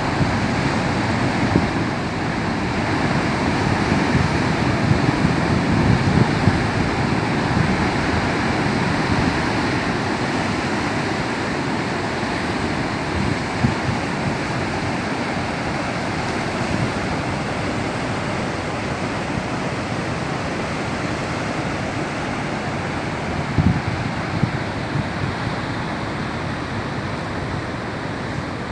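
Rough, choppy sea: waves breaking and surging continuously against the shore, growing louder a few seconds in and briefly peaking again with a sharper crash near the end.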